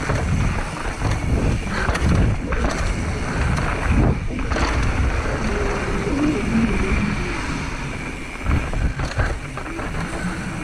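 Mountain bike rolling over a rough dirt trail: tyre noise and the bike rattling over bumps, with wind buffeting the camera microphone.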